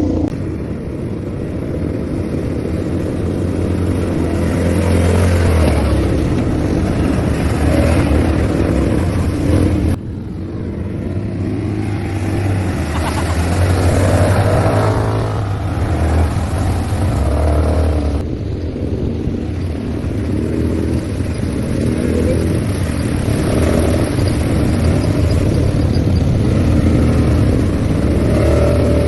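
ATV engine running and revving during a ride, its note rising and easing. The sound changes abruptly about ten seconds in and again near eighteen seconds.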